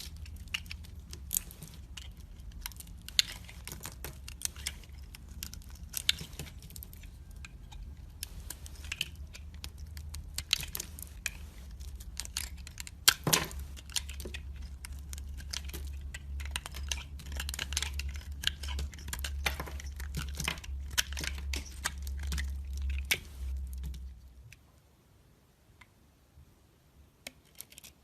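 A knife chopping and crushing dry bar soap: crisp crunches and clicks at an uneven pace, with one sharper snap about 13 seconds in, over a low steady hum. The hum and crunching stop near the end, leaving a few seconds of near silence.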